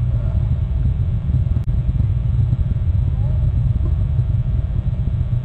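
Wind buffeting an outdoor nest camera's microphone: a loud, steady, gusty low rumble.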